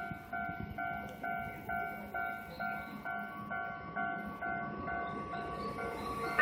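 Japanese railway level-crossing warning bell ringing, a repeating electronic clang at about two strokes a second, the signal that a train is approaching. A steady tone joins about halfway through.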